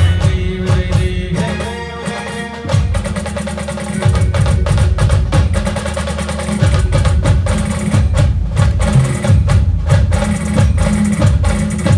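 Loud band music driven by heavy drums at a fast, steady beat. The bass drumming drops out briefly about two seconds in, then comes back.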